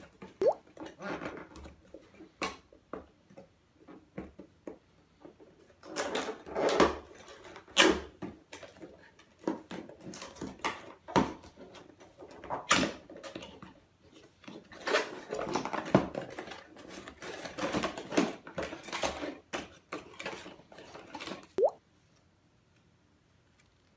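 Cardboard box being handled and opened by hand: flaps pulled open, cardboard and paper scraping and rustling, with short knocks against the tabletop.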